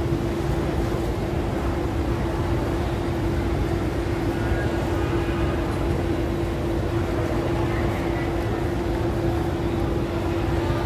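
Busy airport arrivals hall ambience: a steady background roar with a constant hum, and faint crowd voices now and then.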